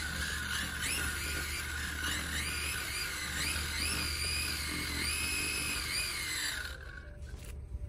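High-pitched electric whine from the RC drag car's sensored brushless motor and ESC. The pitch rises and falls back about six times as the throttle is blipped with the car held in place, and it stops shortly before the end.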